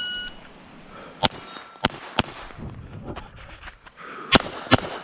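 A shot timer's start beep, then a Glock 44 .22 LR pistol firing five shots: three about a second in and two near the end. A steel target rings briefly after the second shot.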